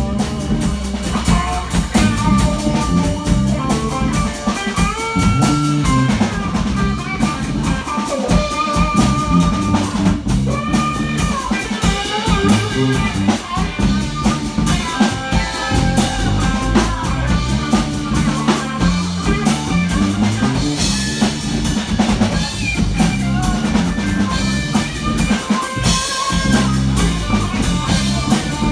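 Live rock band playing: guitar lines over a drum kit, with no break in the music.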